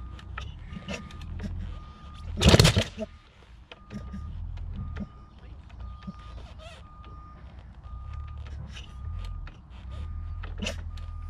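A 700cc two-stroke dirt bike being kicked over without starting, with one loud kick about two and a half seconds in. A vehicle's reversing beeper sounds about once a second throughout.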